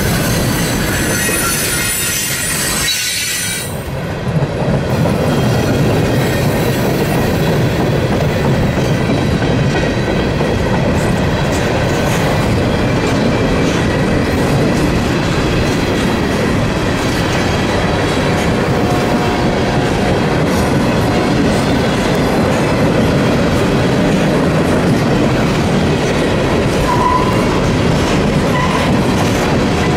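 Mixed freight cars of a manifest freight train rolling past close by: a loud, steady rumble and clatter of steel wheels on the rails. In the first few seconds a high-pitched squeal rides over it, then cuts off about four seconds in.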